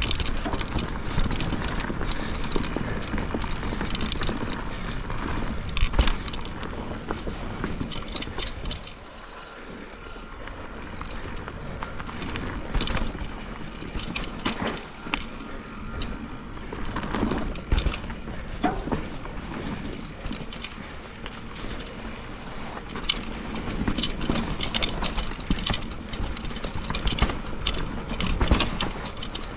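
Enduro mountain bike riding down a wet, rooty trail: tyre noise on wet dirt, with frequent clattering knocks and rattles from the bike over roots and bumps. It goes quieter for a couple of seconds about a third of the way in.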